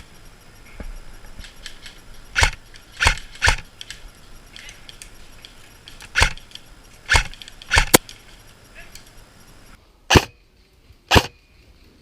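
AK-pattern airsoft rifle firing single shots, about nine sharp cracks spaced unevenly, some in quick pairs.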